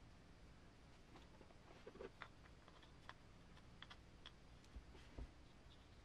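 Faint, scattered clicks and light taps of small parts being handled while a GMADE Sawback Sport RC crawler's transmission is put together by hand. Two soft low knocks come about five seconds in.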